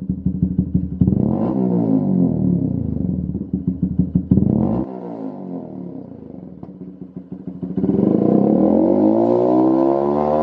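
Honda CBF125's single-cylinder four-stroke engine revving through a Lextek MP4 aftermarket stainless silencer. The throttle is blipped up and down for the first few seconds, and the revs fall back and the note quietens around the middle. About eight seconds in the revs climb again and are held high.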